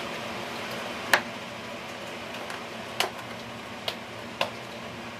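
Paella simmering in a pan: an even sizzling hiss, with four sharp pops as bubbles burst in the sauce, the first about a second in and the rest in the second half.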